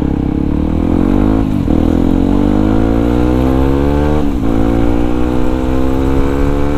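Yamaha WR155R's single-cylinder four-stroke engine accelerating through the gears. Its pitch climbs in each gear, with an upshift about one and a half seconds in and another a little past four seconds.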